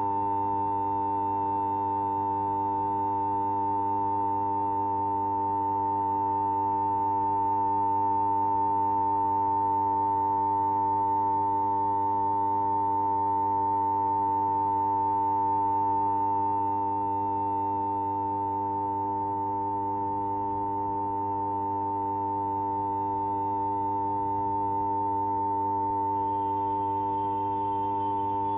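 Steady high-pitched hum: one strong unchanging tone with several fainter, lower tones beneath it, held without a break.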